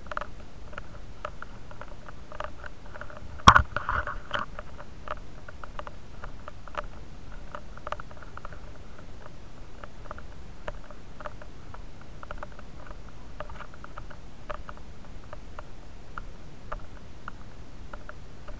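Scratching and rustling handling noise from a body-worn action camera rubbing against the wearer's gear, full of small irregular clicks, with one sharp loud click about three and a half seconds in.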